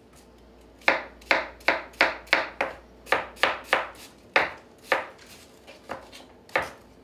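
Chef's knife dicing an onion on a white plastic cutting board: about a dozen crisp chops, two to three a second, starting about a second in and stopping near the end.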